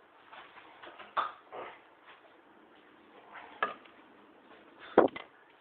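A few separate clicks and knocks of small hard objects being handled: a bottle cap and bottle being set down and picked up. The loudest knock comes near the end, followed by a couple of quick lighter taps.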